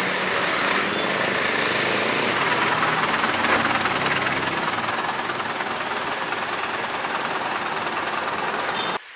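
Night street traffic: vehicle engines running and passing close by over a steady rush of road noise. It cuts off suddenly near the end.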